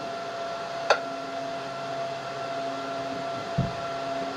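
Steady electrical hum and hiss with a faint high whine between radio transmissions, with a sharp click about a second in and a short low thump about three and a half seconds in.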